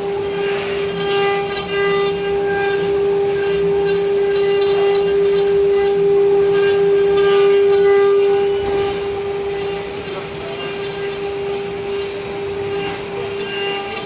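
CNC wood carving machine running, a steady whine from its spindle with rougher cutting noise over it.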